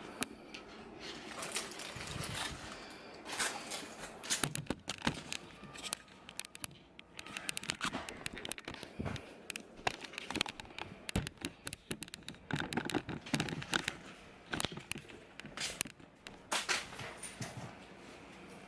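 Bed frame being assembled: irregular knocks, clicks and scraping as its parts are handled and fitted, with some rustling.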